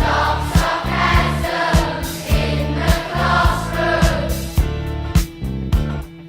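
Background music with a steady drum beat and bass, and a group of wordless sung voices in harmony for the first four seconds or so.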